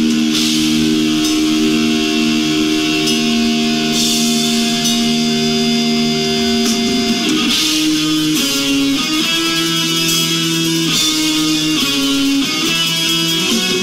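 Metal band playing live on electric guitars through amplifiers: long held chords, then a run of chords changing every second or so from about halfway through.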